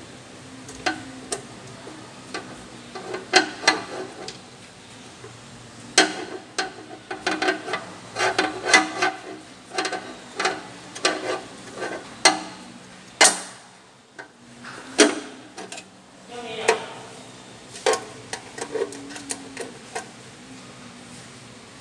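Irregular clicks, taps and metallic knocks of hands fitting and handling parts inside a dermabrasion suction machine's sheet-metal cabinet. There are dozens of sharp hits, thickest through the middle, with a few louder knocks among them.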